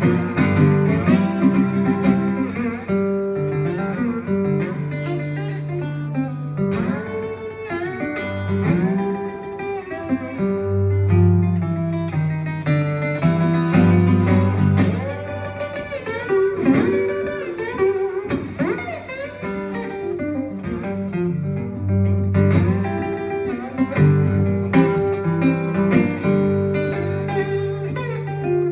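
Instrumental break of a blues song: a guitar playing picked lead lines with bent notes over a low bass line.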